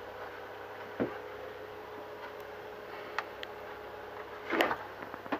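A few light clicks and knocks of small model parts and tools being handled on a workbench, the loudest a short clatter about four and a half seconds in, over a faint steady hum.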